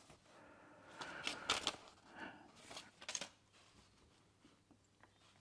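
Sheets of paper rustling as they are handled and laid down, with a few light taps.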